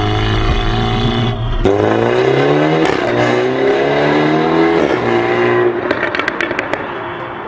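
BMW G20 330i's turbocharged four-cylinder through a de-catted exhaust, accelerating hard: the engine note climbs, drops at a gear change and climbs again. Near the end comes a rapid string of exhaust crackles and pops as the throttle closes.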